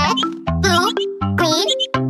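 Children's nursery-rhyme music: a bouncy backing with low bass notes under a high, wavering melody line.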